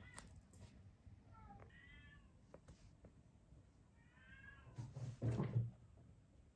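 Kittens mewing: a short high mew at the start, then two longer wavering mews about a second and a half and four seconds in. Near the end comes the loudest sound, a cluster of thumps of small paws landing and running on the floor and mat.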